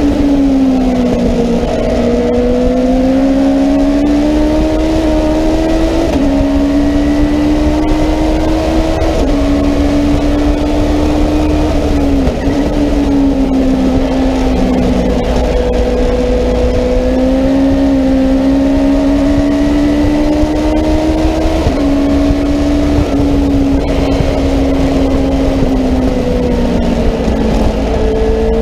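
Legends race car's Yamaha motorcycle engine, heard from inside the cockpit, running hard at high revs under racing load; its note rises and falls through the corners with several sudden steps in pitch from gear changes.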